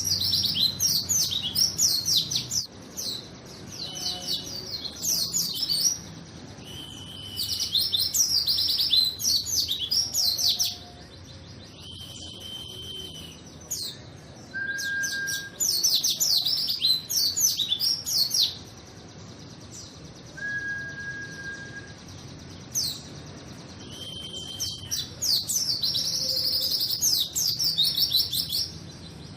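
A white-eye (pleci) in full song, giving long, rapid twittering phrases in repeated bursts of a few seconds each. Short, level whistled notes fall between the bursts.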